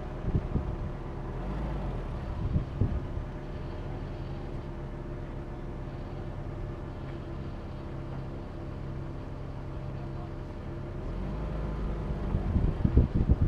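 Vehicle engine running steadily at low revs while driving off-road, with a few thumps near the start and again near the end.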